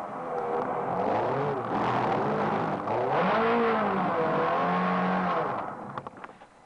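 Ferrari sports car engine heard from inside the cabin, its revs rising and falling several times as the car is driven hard through corners, with road and tyre noise. About a second before the end the engine sound drops away sharply, leaving a few light clicks.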